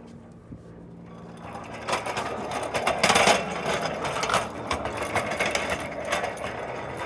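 Steel wheels of a homemade six-wheel railroad truck, carrying a person, rolling along steel rails through a switch. A rattling rumble with many clicks builds about a second and a half in and is loudest about three seconds in.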